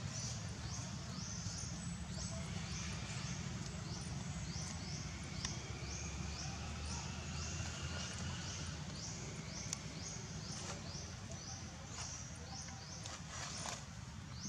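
Forest insects calling in a steady rhythm, about two to three high, buzzy pulses a second, over a low steady rumble. A few soft clicks, like leaf litter rustling, come through here and there.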